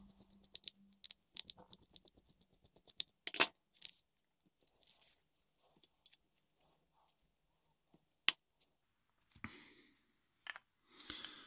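Small steel parts of a Traxxas X-Maxx centre differential clicking and clinking as it is taken apart by hand: screws, gears and housing handled and set down, with a few sharp metallic clicks a few seconds in and again about eight seconds in, and soft rustling near the end.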